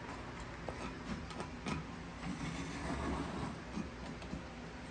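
Scattered light clicks and taps of tools and parts being handled during a chainsaw reassembly, over a low steady background hum.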